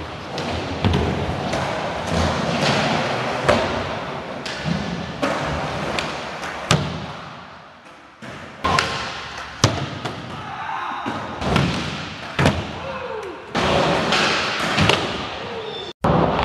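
Skateboard wheels rolling over the ramps of an indoor skate park, with repeated sharp clacks and thuds as the board hits the ramps, pops and lands.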